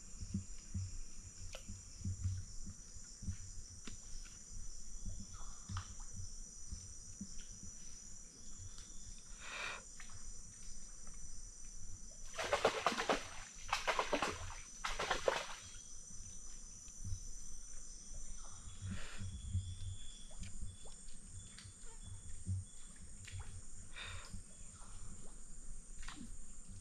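Steady high-pitched chorus of insects in flooded rainforest, with an occasional bird call. About halfway through come three louder harsh bursts, roughly a second apart, from an unclear source.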